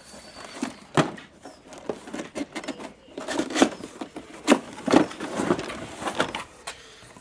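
Cardboard box being handled and opened: a sharp knock about a second in, then a run of scrapes and thuds of cardboard as the lid is lifted.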